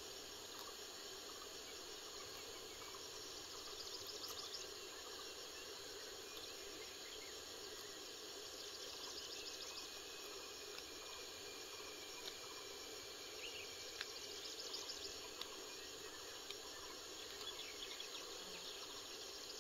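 Faint, steady chorus of insects trilling, with a few soft clicks here and there.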